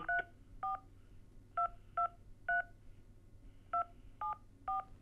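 Touch-tone (DTMF) keypad beeps from a smartphone during a call: eight short two-note beeps in groups of two, three and three, as a nine-digit Social Insurance Number is keyed in.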